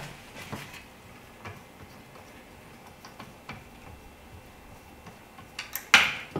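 Light clicks and taps of a clamshell reflector's frame and its light-stand mounting bracket being handled while its angle is adjusted, with a louder clatter of a few sharp knocks near the end.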